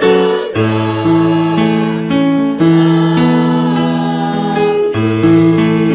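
Choir singing held chords in several parts, the chords changing every second or so.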